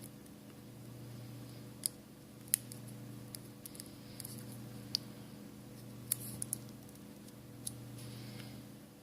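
About ten light, sharp clicks and taps at irregular intervals from small iPhone parts and repair tools being handled while the display connector is plugged back in for a test, over a steady low hum.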